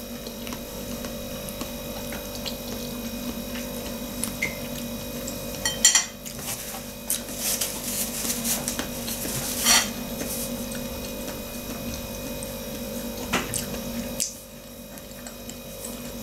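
Eating glass noodles (funchoza) with a fork from a china plate: slurping and chewing, with the fork clinking and scraping on the plate, over a steady low hum. A few short, louder sounds stand out about six and ten seconds in.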